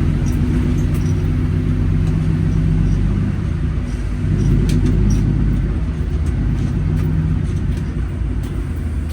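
Steady low drone of a 600-horsepower Cummins diesel in an International 9900 semi truck under way, heard from inside the cab. The engine note shifts about three to five seconds in, then settles again.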